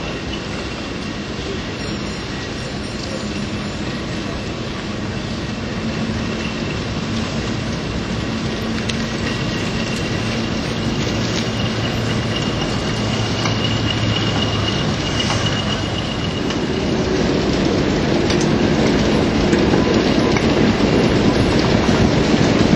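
A class 08 diesel shunter's engine runs as it hauls a dead steam locomotive slowly past, with wheels rolling over the rails. A thin high wheel squeal comes in partway through, and the sound grows louder toward the end as the locomotives draw near.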